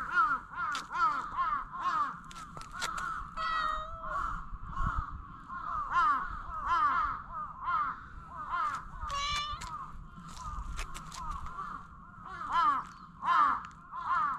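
Tabby cat meowing over and over in short calls, about two to three a second, with three longer meows among them, answering a hand patting it on the lower back.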